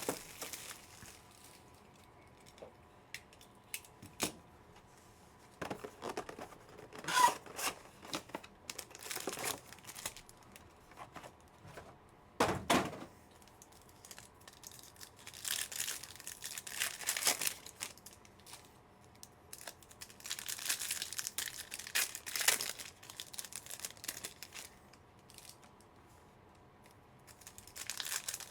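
The wrapping and foil packs of a box of trading cards being torn open and crinkled by hand. It comes in irregular rustling bursts, with a sharp rip about halfway through.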